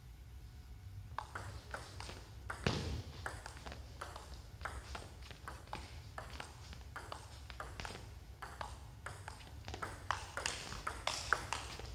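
Celluloid-type table tennis ball clicking off rackets and the table during a rally, a run of sharp ticks about two a second.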